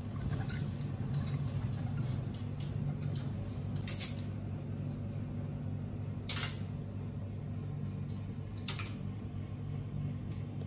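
Roller blind's metal bead chain pulled by hand, rattling and ticking through the blind's mechanism, over a steady low hum. A few sharper clicks stand out, about two seconds apart.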